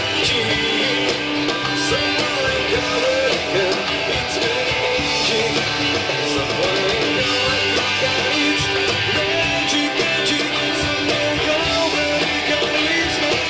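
Live band playing a pop song, with guitar to the fore over bass and drums.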